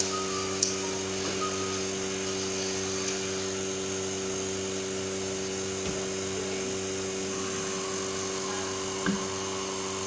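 Small 1-litre electric vacuum pump running with a steady hum, pulling vacuum on an OCA film laminator's mould. A few light clicks come from handling the machine.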